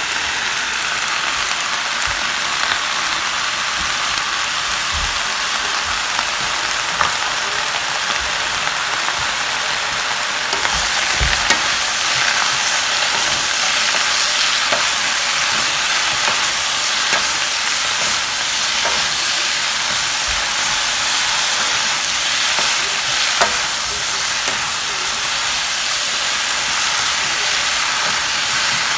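Vegetables stir-frying in a hot pan with stir-fry sauce just added: a steady sizzle that gets louder about ten seconds in, with occasional light knocks.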